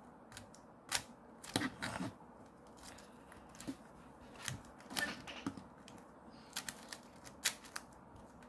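Speed cube being turned quickly in the hands: irregular bunches of sharp plastic clicks as its layers snap round, a fairly noisy turning mechanism.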